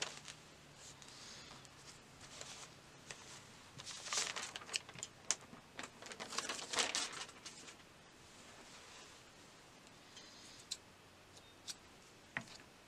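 Fabric rustling and rubbing as stitched layers of an embroidered pouch are pulled through and handled, loudest in two bursts about four and six to seven seconds in, with a few light clicks and taps.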